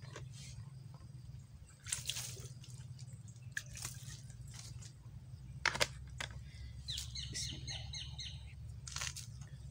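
Water poured from a plastic bottle over hands, splashing and dripping onto the ground in short spells. Birds chirp in the background.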